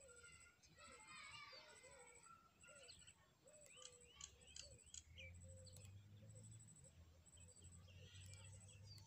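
Faint outdoor ambience of birds calling: a repeated short lower note and scattered high chirps. A low steady hum comes in about halfway through.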